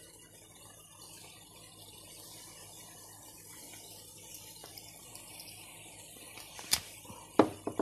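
Chicken and vegetables frying in a pan, a faint steady sizzle, with two sharp knocks near the end.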